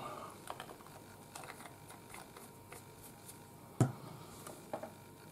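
Light clicks and taps of painting tools and paint items handled on a hobby desk while paint is mixed on a palette, with one louder knock a little under four seconds in.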